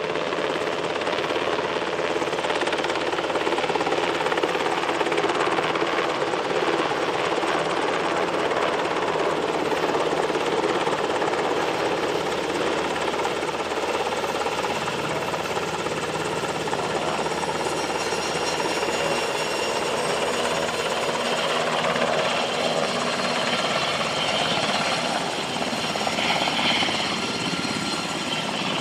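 UH-60 Black Hawk helicopter flying low overhead and then approaching just above a field, its rotors and turbine engines running at a steady level.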